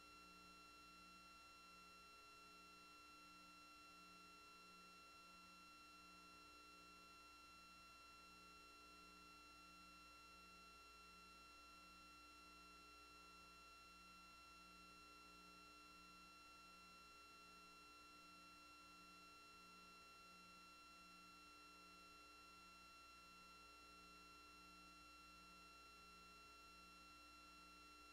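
Near silence: only a faint electronic hum with a few steady high tones and a low tone pulsing about once a second, with no sound from the traffic scene itself.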